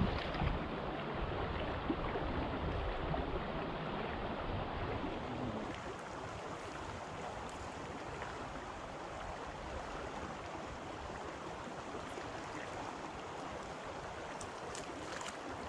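A creek's water rushing steadily, a little louder for the first several seconds.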